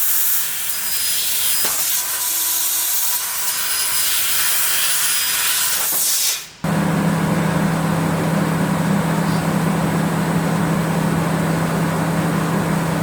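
3 kW fiber laser cutting 5 mm stainless steel: a loud, steady hiss of the cutting head's gas jet blowing through the cut. About six and a half seconds in it stops abruptly and a steady low machine hum with a noisy hiss underneath takes over.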